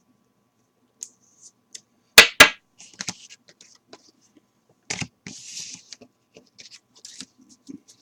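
Trading cards and plastic card holders handled on a tabletop: two sharp clacks close together about two seconds in, another knock about five seconds in followed by a brief sliding rustle, with scattered light clicks throughout.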